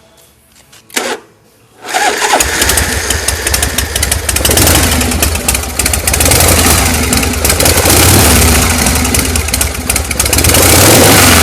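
1983 Harley-Davidson Shovelhead V-twin engine being started: a short burst of sound about a second in, then the engine catches about two seconds in and runs loud with a lumpy potato-potato beat, its loudness swelling and easing.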